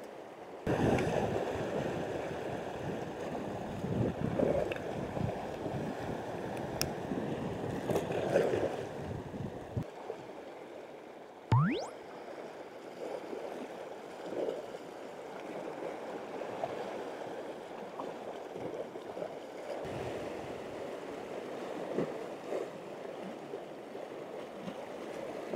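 Sea washing against a rocky shore, a steady rush of water with a few swells; a single quick rising sweep sounds near the middle.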